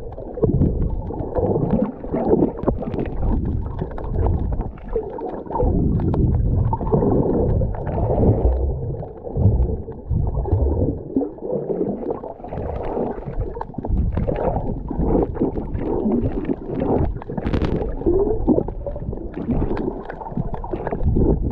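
Muffled underwater noise from a camera microphone held underwater: a continuous low rumble with uneven gurgling swells of moving water and bubbles.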